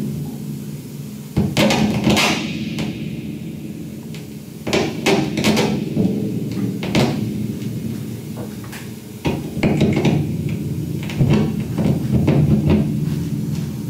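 Live music performance: a sustained low drone with irregular sharp knocks and clatters over it, coming in clusters.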